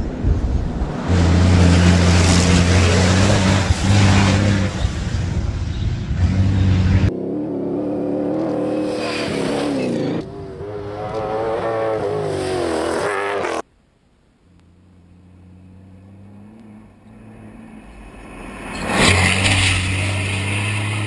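Rally truck's engine running hard as it drives past at speed, with dust and tyre noise. After an abrupt cut comes engine sound that rises and falls in pitch as it revs. Around the middle the sound cuts off to near silence, then another rally vehicle's engine grows from faint to a loud pass near the end.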